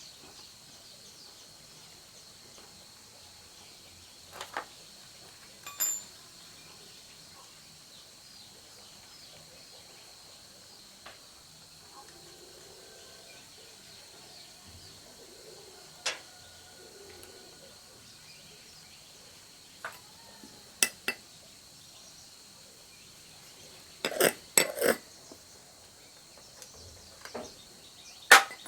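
Scattered sharp metallic clinks and taps, like tools and small metal parts being picked up and set down while a chainsaw is worked on, with a cluster of louder clinks near the end. A steady high whine, like insects, runs underneath.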